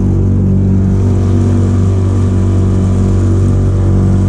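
Small boat's outboard motor running at a steady speed while the boat is under way.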